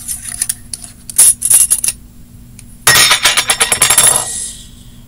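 Small plastic slime containers handled and a lid worked at: scattered sharp clicks and clacks, then a dense clatter of them about three seconds in that lasts over a second.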